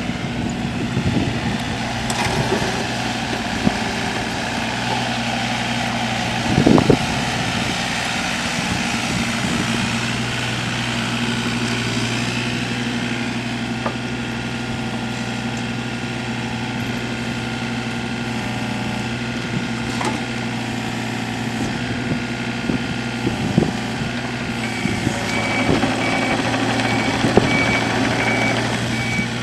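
Takeuchi TB125 compact excavator's Yanmar 3TNV82A three-cylinder diesel running steadily, with a few knocks, the loudest about seven seconds in. Near the end a backup alarm begins beeping at an even pace.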